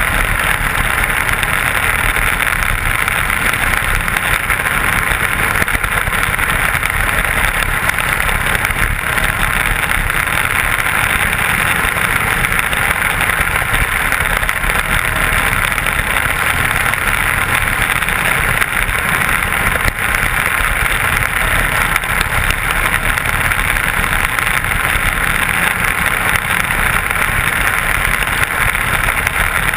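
Intermediate sprint car engine running hard and steadily at racing speed, heard from the driver's helmet camera.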